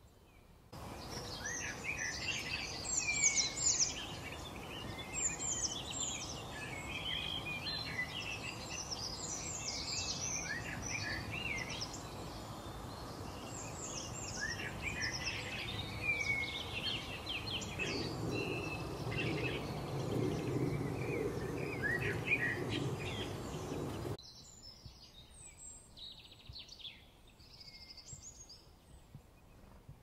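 Many small songbirds chirping and twittering together over a steady outdoor background hiss. The chorus starts suddenly just under a second in and drops abruptly to a few fainter chirps in the last several seconds.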